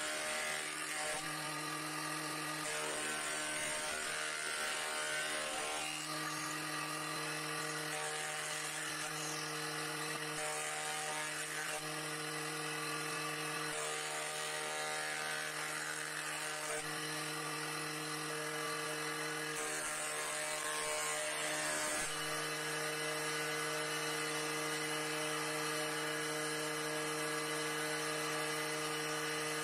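A FANFER bench jointer running with a steady hum. Boards are fed by hand over its cutterhead, and each of several passes adds a rushing planing noise as the blades take wood off the surface.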